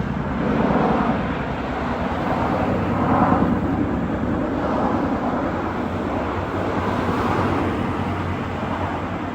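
Chinook tandem-rotor helicopter flying, its rotors giving a fast, steady beating over a broad engine and rotor noise that swells and fades slightly.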